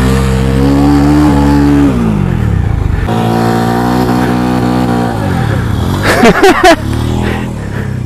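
Motorcycle engine revving hard with the rear wheel spinning in loose sand, the revs held high and then falling away twice. About six seconds in, a short, very loud sharp outburst cuts over it.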